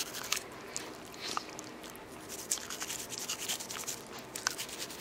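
Small toothbrush scrubbing a dog's teeth: faint, quick brushing strokes of bristles on enamel, with a few sharper ticks.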